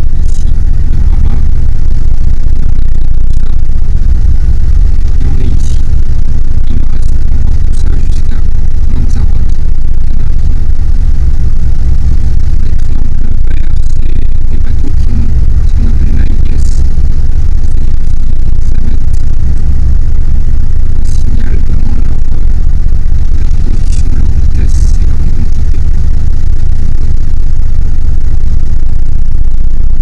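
Loud, steady low rumble of a sailing boat underway, heard from inside the cabin, with scattered light clicks and knocks.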